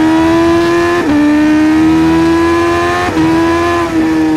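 Honda CBR1000RR-R Fireblade SP's 999cc inline-four at high revs under hard acceleration. The pitch climbs slowly and is broken by quick gear shifts about a second in and again near three and four seconds in.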